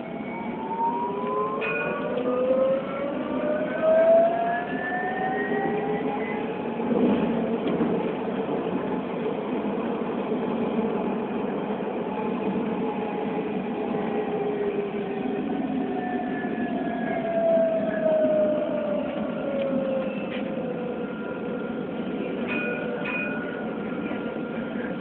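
Electric tram's traction motors whining as it gets under way: the whine climbs in pitch over the first six seconds, holds, then falls again from about twelve to twenty seconds as the tram slows, over a steady rumble of the running car. Heard from inside, just behind the driver's cab.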